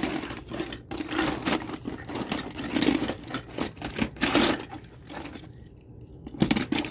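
Rapid clattering and rattling of die-cast toy cars and plastic track being handled, busiest for the first four seconds or so, then dying down, with one more short rattle near the end.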